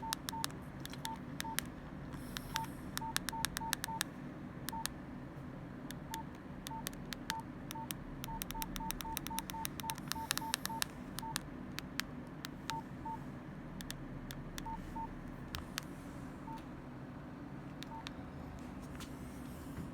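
Nokia 105 keypad tones: short beeps all of one pitch, each with a click from the key, as buttons are pressed irregularly in quick runs, most densely about 2 to 4 seconds in and 8 to 11 seconds in, then sparser. A steady low hum runs underneath.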